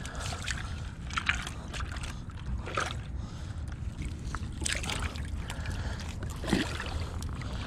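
Shallow seawater sloshing among shoreline rocks over a steady low rumble, with a few sharper splashy scuffs about every second and a half as feet step across wet, barnacle-covered rocks.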